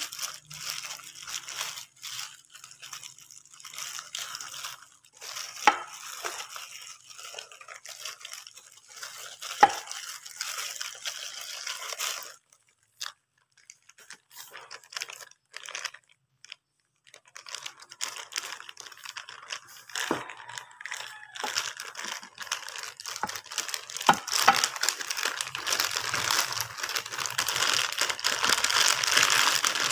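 Bubble wrap and a thin plastic bag crinkling as they are handled and pulled off a laptop charger, with a few sharp crackles. It falls almost silent for a few seconds midway, then the crinkling comes back denser and louder toward the end.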